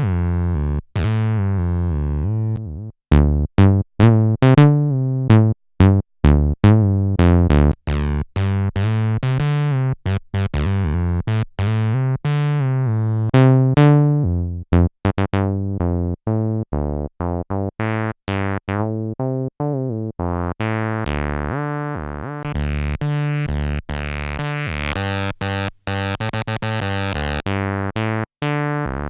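Behringer TD-3 bass synthesizer playing a distorted, squelchy TB-303-style acid bassline: a rapid sequence of short pitched notes whose resonant filter sweeps open and closed, brightening and darkening the tone.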